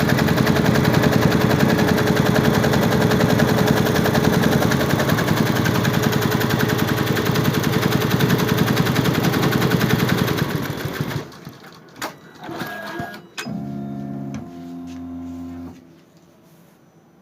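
Computerized embroidery machine stitching, a fast steady rattle of needle strokes that stops about ten seconds in. A few sharp clicks and a short steady tone follow as the machine comes to rest.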